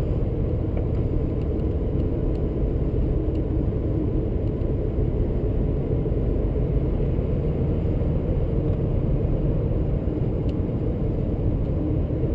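Car driving at steady speed, heard from inside the cabin: an even low rumble of engine and road noise.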